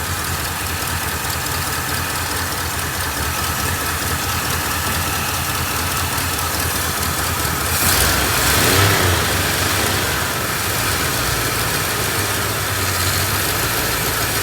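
A 1966 Ford Galaxie 7 Litre's 428 V8 idling rough, with a louder surge about eight seconds in. It has a big exhaust leak, and the smog pump sounds like it's about to disintegrate.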